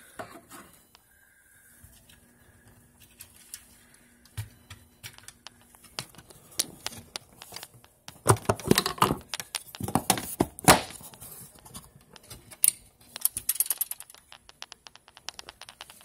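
Handling noises: scattered clicks, taps and scrapes as a torpedo level and the fire alarm panel enclosure are handled. There are louder scraping, rattling bursts about eight and ten seconds in, and a quick run of clicks near the end.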